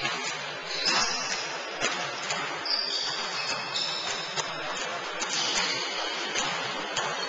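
Basketball shoes squeaking on a wooden court, several short high squeaks, one sliding in pitch about three seconds in, mixed with the knocks of basketballs bouncing on the floor.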